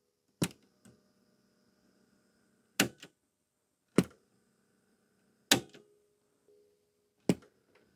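Cassette deck transport buttons on a Teac MX-D10 mini hi-fi being pressed: five sharp clicks spread over several seconds, a couple followed by a softer second click, over a faint steady hum. No tape sound follows the presses, because the deck is not driving; the owner puts this down to a broken or slipped drive belt.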